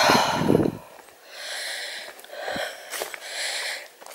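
A person breathing hard while walking downhill, about four breaths roughly a second apart, the first the loudest.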